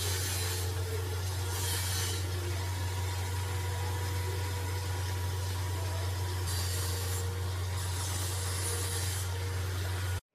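A steady low hum, the loudest sound, with several short bursts of dry rubbing as a hand works oil into maida flour in a plastic bowl. The sound cuts out abruptly near the end.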